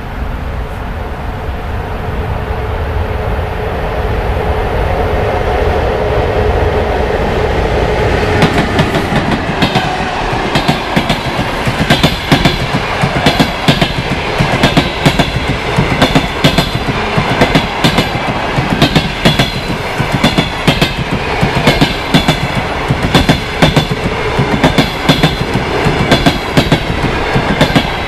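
EP1M electric locomotive approaching with a steady rumble and hum; the hum dips in pitch as the locomotive passes about eight seconds in. Passenger coaches then roll by with a rhythmic clickety-clack of wheels over the rail joints.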